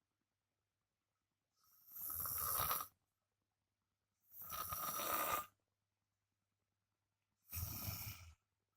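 A man snoring loudly in his sleep: three rough snores, each about a second long and about two and a half seconds apart, with silence between them.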